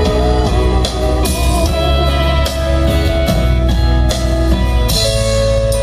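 Live rock band playing an instrumental passage: electric guitars over a drum kit and bass, loud and continuous.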